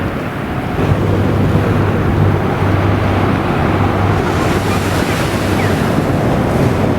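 Jet airliner on landing, a steady rushing roar with a low hum that grows about a second in and a brighter hiss near the middle, mixed with wind buffeting the microphone.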